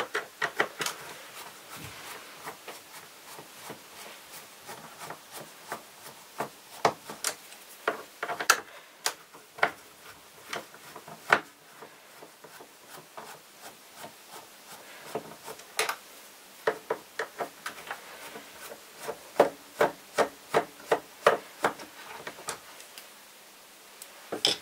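Irregular sharp clicks and scraping from hand work on the plastic chassis of a Vorwerk VR100 robot vacuum being dismantled, with quick runs of clicks about halfway through and again near the end.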